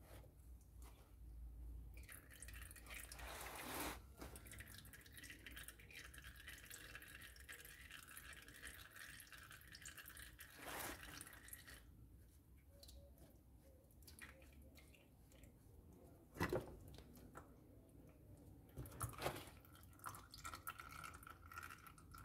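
Faint trickling and dripping of engine oil from an opened oil filter housing into a plastic drain pan, with a few light knocks.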